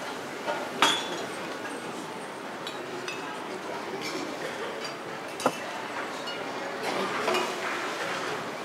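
Steady murmur of a large indoor arena crowd, with sharp clinks about a second in and again about five and a half seconds in.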